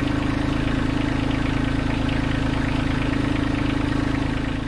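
Kubota LX2610 compact tractor's three-cylinder diesel engine idling steadily.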